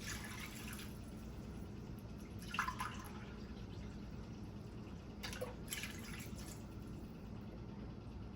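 Chicken broth being poured into a pan of cooking jambalaya: three short splashing pours over a steady low hum.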